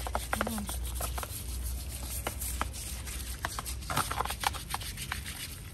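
A brush scrubbing a tortoise's wet shell: irregular scratchy scrapes and clicks, over a low steady rumble.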